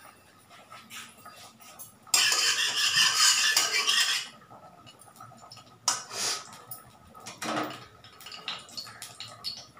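A wooden spatula worked around the inside of a kadai of heating oil, a loud scraping rush of about two seconds that starts and stops sharply. A couple of sharp knocks follow as a utensil is set down on the steel gas stove.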